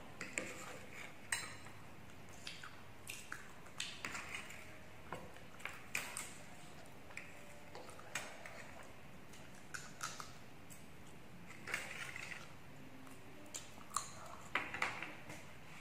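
Cutlery clinking and scraping against serving dishes: scattered light clicks every second or so, with some chewing.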